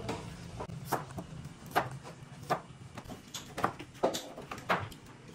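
Kitchen knife slicing papaya, the blade knocking down onto a plastic cutting board about seven times at uneven intervals.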